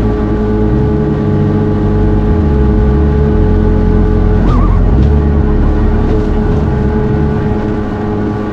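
Personal watercraft (jet ski) engine running at speed across open water, with spray and wind noise. The engine note dips and rises a couple of times as the throttle changes.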